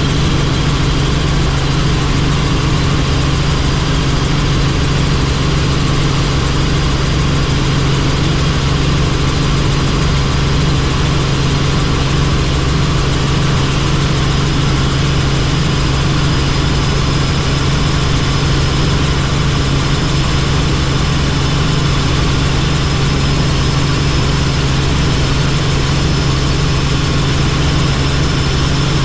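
Helicopter in flight: a steady, loud engine-and-rotor drone with a strong low hum and a faint high whine above it.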